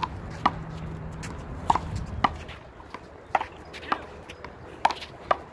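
One-wall handball rally: a small rubber ball smacked by hand and bouncing off the concrete wall and court, about eight sharp smacks coming in pairs roughly half a second apart.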